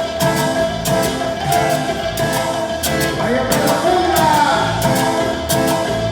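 Latin tropical dance music with a steady percussion beat and a melody line that glides up and down around the middle.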